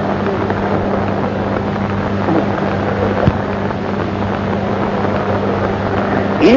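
Steady hiss and low hum of an old live recitation recording during a pause between verses. At the very end the reciter's voice slides up as the recitation resumes.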